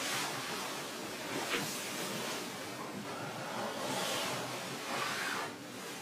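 Soft rustling and a few swishes as hands rub over a bare back during a massage and the bedding shifts.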